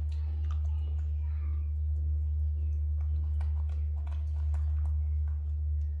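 A macaque eating mango slices: soft chewing with many small, scattered clicks of lips and teeth, over a steady low hum.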